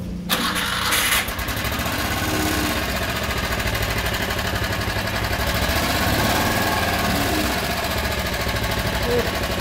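Motor Sich MB-8E walk-behind tractor's engine speeding up sharply about a third of a second in, then running steadily with an even pulsing beat.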